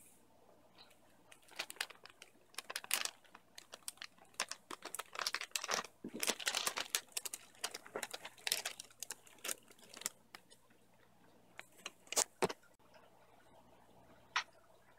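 Plastic fish-shipping bags crinkling and rustling in bursts as they are handled in a cardboard box, dying down after about ten seconds, followed by a few light knocks.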